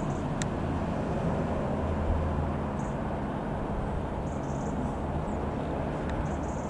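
Piper PA-28-180 Cherokee's single piston engine droning steadily as the light aircraft flies at a distance.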